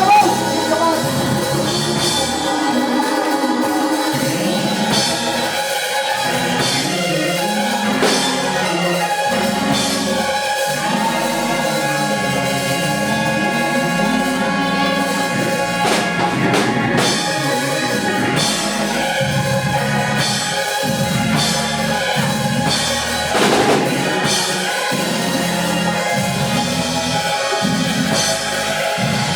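Instrumental church band music with a drum kit, playing steadily over sustained chords.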